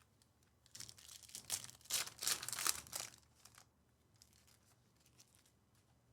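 Trading-card pack wrapper crinkling as it is torn open and handled, followed by a few faint clicks.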